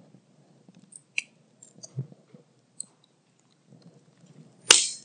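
Microphone handling noise while a handheld mic reaches the next questioner: scattered faint clicks and rustles, then one sharp knock near the end.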